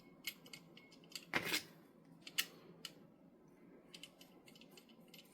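Faint small metallic clicks and taps as a small part is fitted into a Gasser Montenegro revolver by hand, with one brief louder sound about a second and a half in.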